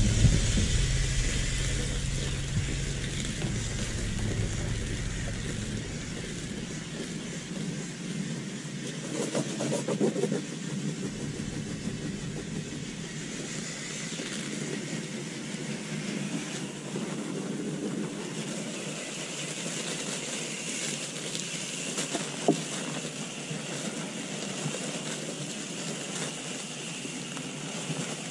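Garden hose spray nozzle rinsing foamed coil cleaner out of an air conditioner's condenser coil: a steady hiss of water spraying through the fins. A low rumble is heard during the first few seconds, and there is one sharp click about 22 seconds in.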